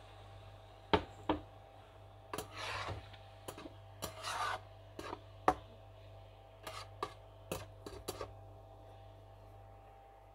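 Metal slotted spatula stirring mushroom curry in a non-stick wok: a run of sharp taps and short scrapes against the pan over the first eight seconds, then it stops.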